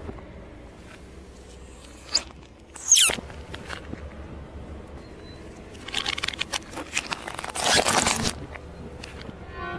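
Small plastic objects crushed under a car tyre. A short squeak falling in pitch comes about three seconds in, then a run of sharp cracks and crackles, loudest near the end as ping-pong balls split under the tread.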